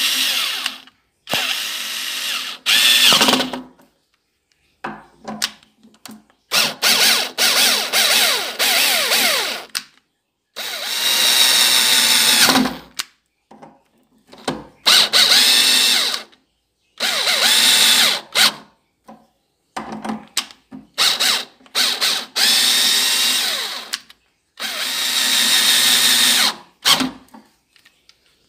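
Black+Decker BDCD8 7.2 V single-speed cordless drill driver turning screws in door hinges in a dozen or so short bursts of one to two seconds, separated by silent gaps, the motor whine rising and falling as it starts and stops.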